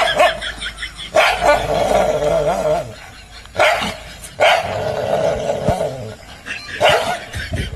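A Labrador dog barking in several loud outbursts, each trailing off into a long, wavering growl-like vocal sound.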